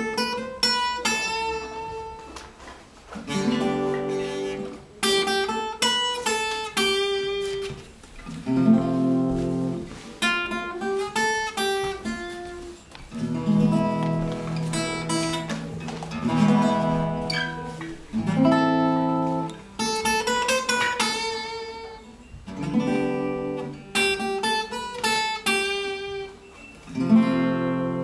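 Acoustic guitar played solo, strummed chords mixed with picked notes, in phrases of a few seconds each.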